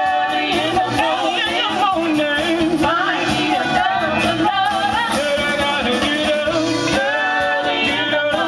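Live band playing with a lead singer, the voice wavering in long held notes over the accompaniment.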